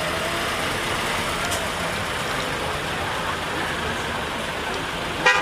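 Steady street noise of vehicles rolling past. Near the end a vehicle horn gives a short, loud toot.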